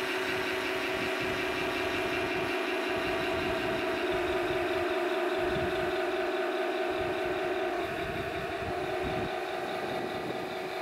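Tamiya 1/16 full-option RC Tiger I tank running its electronic engine sound as it drives. The sound is steady and drops slightly in level about eight seconds in.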